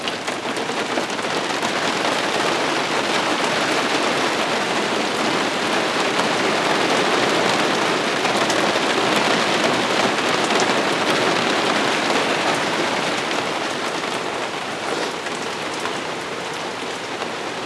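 Heavy thunderstorm downpour: a steady rush of rain, growing a little louder in the middle and easing slightly near the end.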